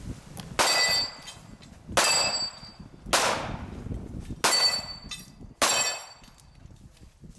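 Five gunshots about a second apart, most followed by the ringing clang of steel targets being hit.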